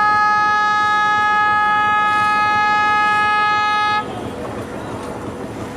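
WDM-3A diesel locomotive's air horn sounding one long, steady chord of several tones, cutting off suddenly about four seconds in. The rumble of the passing tank-wagon freight train carries on underneath and is left on its own after the horn stops.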